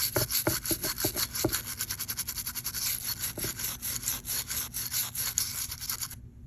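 A small brush scrubbing dust off a phone around its front camera, in quick back-and-forth strokes several a second, stopping near the end.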